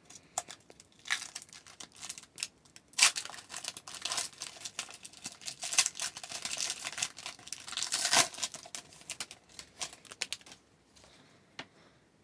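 A trading-card pack wrapper being torn open and crinkled by hand, in an irregular run of crackles and rustles, followed by a few light clicks of cards being handled near the end.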